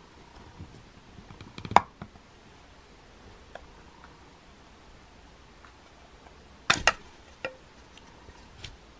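Plastic back cover of a BLU Tank X T630 phone being pried off by hand: small plastic clicks leading to a sharp snap about two seconds in, then two snaps close together about seven seconds in as the cover's clips let go, and a few lighter clicks after.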